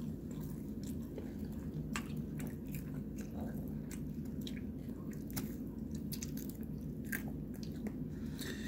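A man chewing a mouthful of a cheese-filled fried potato tot with ketchup: scattered short, wet mouth clicks over a steady low hum.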